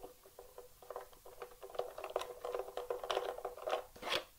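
Faint, quick clicking and scraping of the AR-7 rifle's parts being turned and handled in the hands while it is taken apart.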